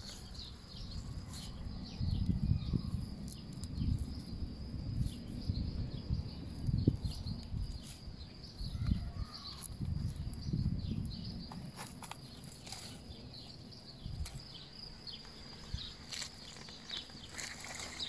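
Birds chirping in many short falling notes over a steady high buzz, with low irregular rumbling thumps that are strongest in the first half.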